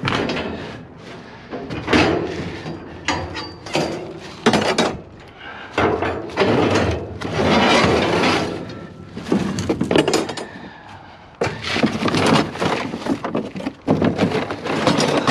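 Irregular clattering, knocking and scraping of hard scrap items being handled and sorted.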